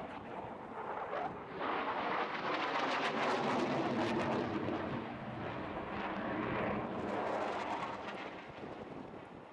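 Jet noise from a Eurofighter Typhoon's twin Eurojet EJ200 turbofans as it manoeuvres overhead. It swells about two seconds in, stays loud and crackling through the middle, and fades toward the end.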